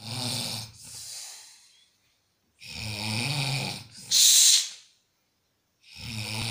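A man snoring: low, rattling snores about every three seconds, each trailing into a hissing breath; the breath after the second snore, about four seconds in, is a loud puff and the loudest sound.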